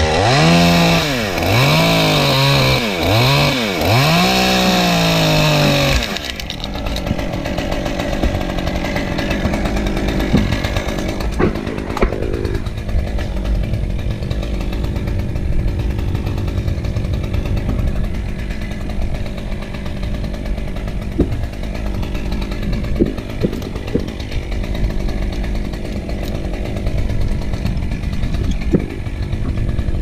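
Chainsaw revving hard several times in a row, its pitch sweeping up and down with each blip of the throttle. About six seconds in it gives way to a steadier, duller running noise that lasts for the rest.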